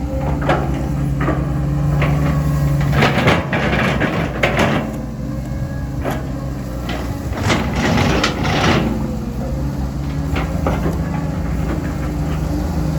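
CAT 320D2 GC excavator's diesel engine running steadily under load, with repeated knocks and clanks from the working machine and two longer bursts of scraping noise, about three and about seven and a half seconds in.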